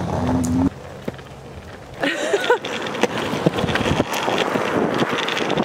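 Skateboard wheels rolling along a rough concrete path: a steady rolling noise with scattered small clicks, starting about two seconds in.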